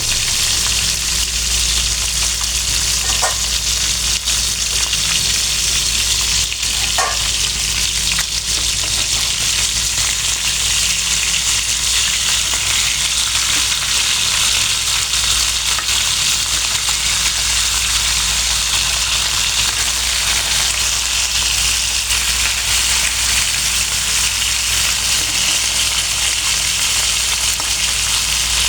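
Fish frying in hot oil in a pan: a steady, loud sizzle.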